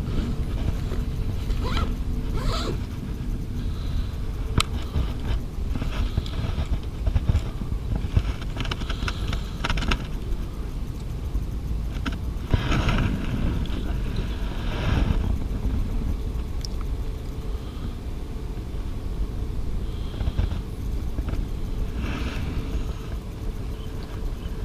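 Wind buffeting an outdoor action-camera microphone as a steady low rumble, with occasional rustles and scrapes from the wearer's bag and movement as he walks.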